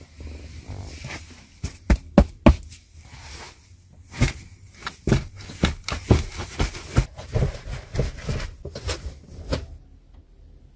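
A string of irregular knocks and clicks inside a car cabin, with a low rumble underneath; the loudest come about two seconds in, and they stop shortly before the end.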